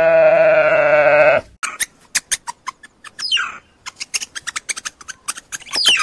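A sheep gives one long, quavering bleat. About a second and a half in it gives way to a quick series of short, high chirps and peeps from meerkats, among them a couple of longer falling calls.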